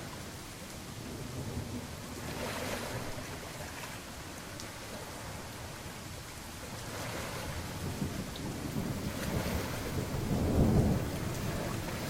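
Steady rain with rolling thunder that swells a few times, its deepest and loudest rumble coming about ten seconds in.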